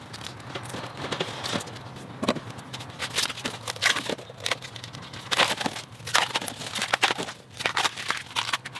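Bamboo shoot sheaths being peeled and torn off by hand: irregular crackling and tearing of the husk.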